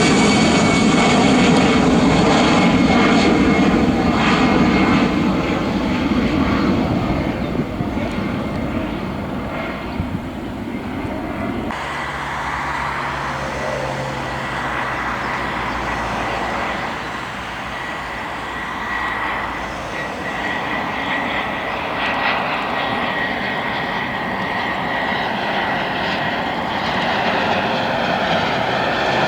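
Airliner jet engines running, a loud rush with a steady high whine through it. The sound changes abruptly about twelve seconds in and grows louder again near the end.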